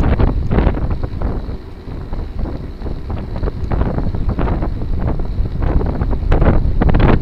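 Wind buffeting the microphone of a camera on a moving gravel bike, with scattered knocks and crackles from the bike on rough ground. The wind drops off about two seconds in, then builds again.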